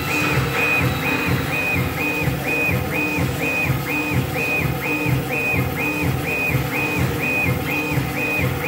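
Stepper motors of a CNC stone engraving machine whining in short, evenly repeated strokes, about two and a half a second, as the laser head rasters back and forth. Each stroke rises, holds and falls in pitch with the head's speed-up and slow-down, with a low pulse under each one.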